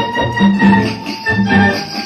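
Instrumental backing music for an old Egyptian film song, with no singing: held melody notes over a bass that pulses in a steady rhythm.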